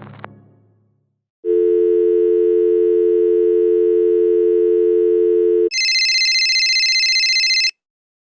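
Telephone dial tone: a steady two-pitch hum that holds for about four seconds and then stops. It is followed straight away by a higher, shriller steady electronic tone lasting about two seconds. A brass music clip fades out just before the dial tone.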